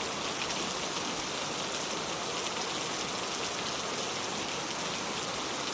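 Gentle rain falling steadily: an even hiss with faint scattered drop patter.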